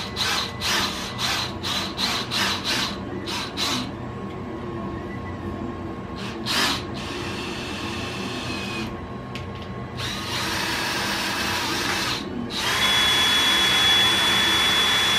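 Cordless drill driving a bolt to pull a nylon lock nut down into a 3D-printed part: about nine quick trigger blips in the first three seconds, one more short burst a few seconds later, then two longer runs, the second louder with a steady motor whine.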